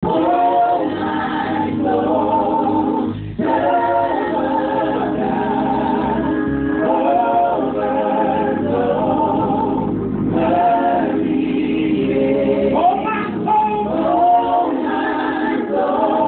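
Gospel praise-and-worship singing: a small group of men and women singing together, the voices rising and falling in pitch without a break.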